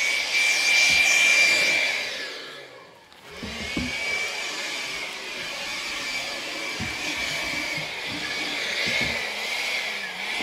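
Small cordless handheld air blower running with a steady high whine. About two seconds in it winds down with falling pitch, then starts up again a second later and keeps running.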